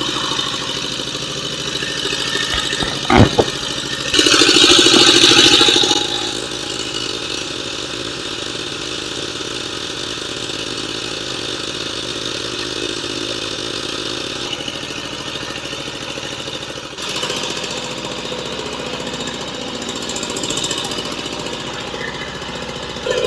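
Fishing boat's engine running steadily under way. A sharp knock comes about three seconds in, and a louder rushing noise lasts about two seconds just after.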